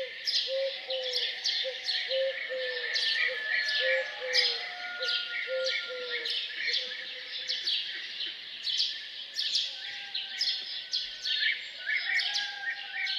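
Many small birds chirping and twittering in a dense morning chorus. Through the first half, a pigeon gives a low cooing note over and over, about twice a second.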